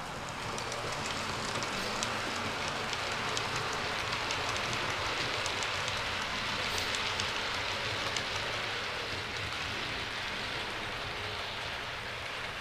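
Model trains running on the layout's track: a steady rushing hiss with many light clicks from the wheels over rail joints. It swells about half a second in and eases slightly near the end.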